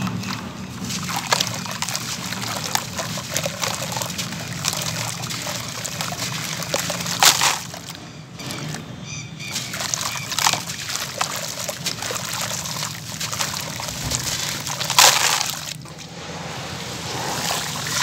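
Dry gritty cement crumbs pouring and crumbling into a basin of water, with water sloshing as hands work the wet grit. Two sharper, louder splashes come about seven and fifteen seconds in.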